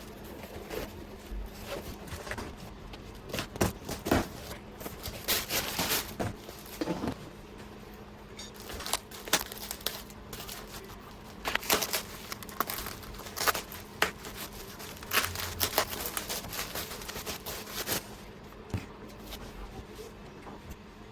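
Irregular rustling, crinkling and small clicks from handling parts and tools on a repair bench, in uneven bursts, over a steady low hum.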